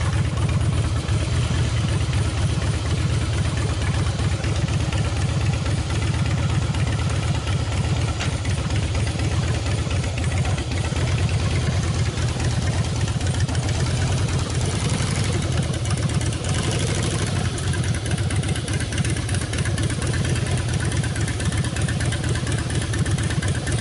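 Air-cooled Harley-Davidson Twin Cam 96 V-twin of a 2007 FXSTC Softail, running steadily at idle.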